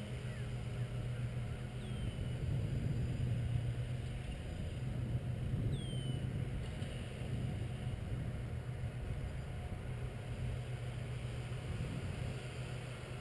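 Twin motors of a radio-controlled scale Cessna T-50 Bobcat model airplane droning steadily in flight overhead.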